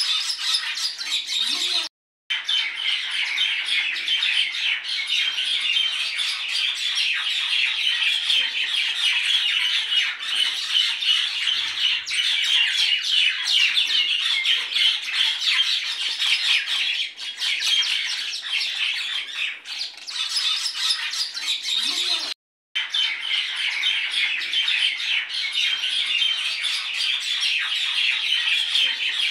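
Battered green chillies frying in hot oil in a small pan: a steady sizzle with fine crackling. The sound cuts out briefly twice, about two seconds in and near twenty-two seconds.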